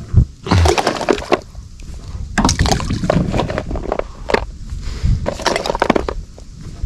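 Handfuls of boilies thrown into the lake beside a rowing boat, landing as clusters of short splashes and plops.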